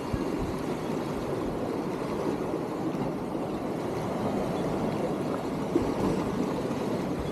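Steady rush of wind buffeting the microphone, mixed with seawater washing against the jetty's boulders, with one brief knock near the end.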